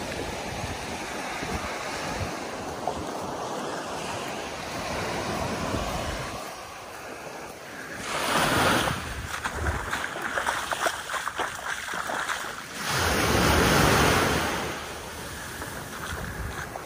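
Small waves breaking and washing up a sandy beach, with two louder washes about eight and thirteen seconds in. Wind buffets the microphone with a low rumble in the first half.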